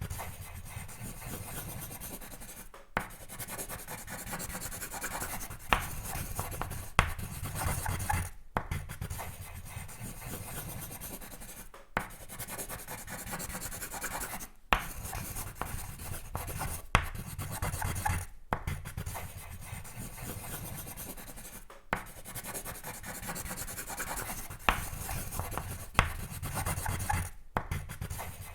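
Sketching on paper: continuous scratchy rubbing strokes of a drawing tool, broken by brief pauses every few seconds as it is lifted, with occasional sharp taps on the page.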